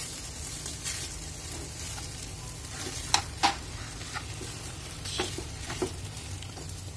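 Steel spatula stirring and scraping mashed potato filling in a nonstick pan over a gas flame, with a few sharp clicks as the spatula knocks the pan, the clearest about three seconds in and again after five seconds.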